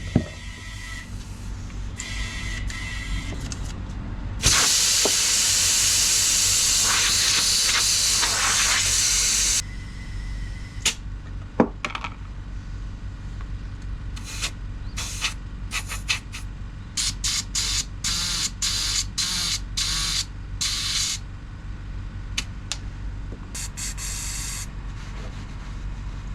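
A steady spraying hiss lasts about five seconds, starting a few seconds in and cutting off sharply, followed by scattered short clicks and knocks of parts being handled.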